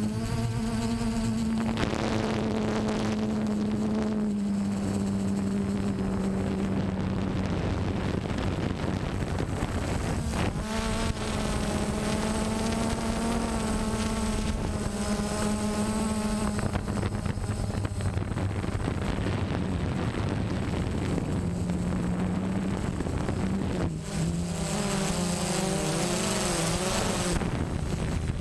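DJI Phantom quadcopter's four brushless motors and propellers buzzing steadily in flight, heard from the camera mounted on the drone, with wind rushing over the microphone. The pitch shifts as the motors change speed, wavering and beating against each other for a few seconds near the end.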